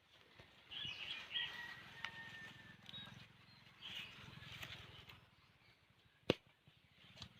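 Birds chirping in short bursts over a low steady hum, with one sharp knock about six seconds in.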